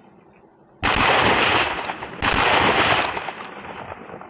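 Two shotgun blasts about a second and a half apart, each ringing out with a long fading tail: hunters shooting at ducks.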